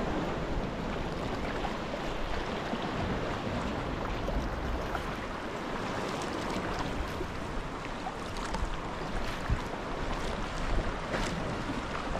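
Water sloshing against a sea kayak's hull as it is paddled, with wind on the microphone and a few short splashes in the second half.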